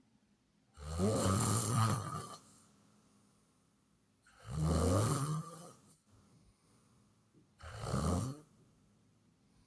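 A person snoring loudly: three snores, each a low pitched drone lasting one to one and a half seconds, coming about every three and a half seconds with quiet breaths between.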